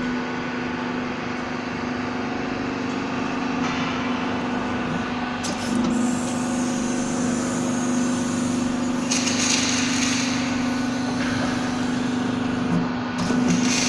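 A machine running with a steady, even-pitched hum that steps up a little about six seconds in, with spells of hissing laid over it just past the middle and again near the end.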